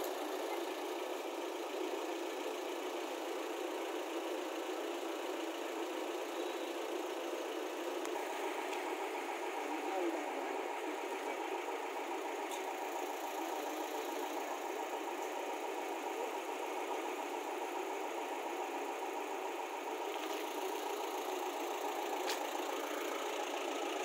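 Engine running steadily while diesel is pumped from a tanker into an excavator, with a faint steady whine joining about eight seconds in and fading near the end.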